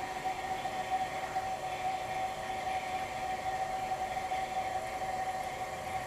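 GE Monitor Top CK-2-C16 refrigerator's hermetic compressor running steadily on a fresh charge of R152a, a constant whine over a steady hum. It is refrigerating: the evaporator is getting cold.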